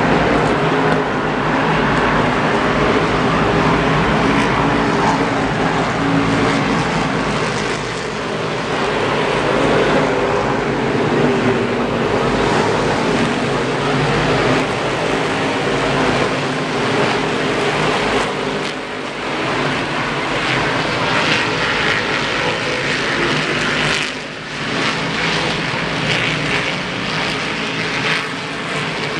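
Race car engines running in the pits, a loud steady drone made of several engine notes that shift in pitch.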